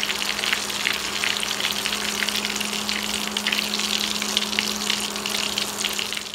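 Breaded ground-beef patties shallow-frying in hot oil in a frying pan: a steady, dense sizzle full of small crackles and pops, with a steady low hum underneath.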